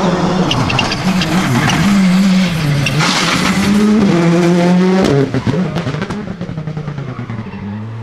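Citroën C3 Rally2's 1.6-litre turbocharged four-cylinder engine at full throttle as the rally car goes by, its pitch rising and dropping with gear changes. The engine climbs sharply in pitch about four seconds in, then fades away after about five seconds.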